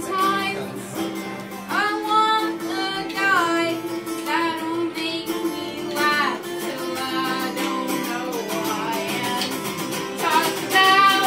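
Live band music: a hollow-body electric guitar playing under a male voice singing in high, sliding phrases.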